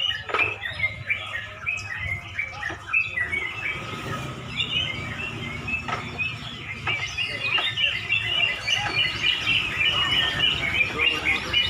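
Many caged yellow-vented bulbuls (trucuk) singing at once, a dense stream of short overlapping chirping phrases with no pause, over a low background rumble.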